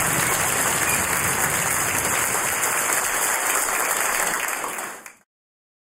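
Concert audience applauding, a dense steady clapping that fades out about five seconds in.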